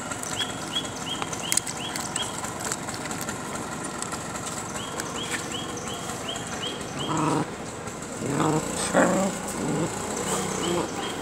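Stray dogs crowding close make a few short whines about seven to nine and a half seconds in, over a high chirp that repeats about three times a second in short runs.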